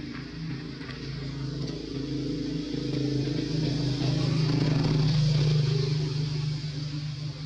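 A motor vehicle engine running steadily, growing louder to a peak about five seconds in and then easing off.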